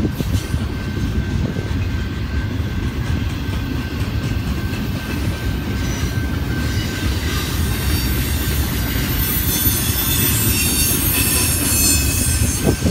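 Double-stack container train's cars rolling past on the rails, a steady low rumble, with high-pitched wheel squeal building in the second half.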